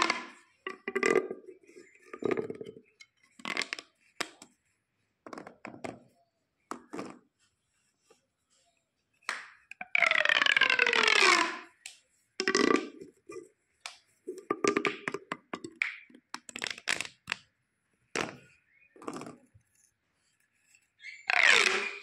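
Plastic pop tubes, corrugated stretch tubes, being pulled out and pushed back together, giving a string of short popping, ratcheting rasps. A longer stretch about ten seconds in gives a rasp that falls in pitch.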